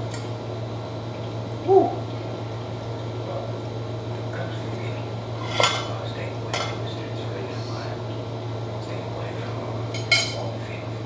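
Metal spoon scraping and clinking against an aluminium pot and plate as rice is served, with sharp clinks around the middle and again near the end. A steady low hum runs underneath, and a short pitched squeak comes about two seconds in.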